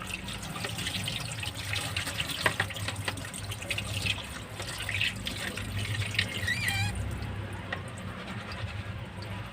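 Tap water running and splashing as oregano leaves are rinsed under it; the flow stops about seven seconds in.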